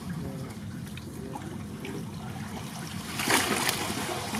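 Water trickling and dripping off a wet fishing net as it is hauled in by hand, with a louder splash about three seconds in.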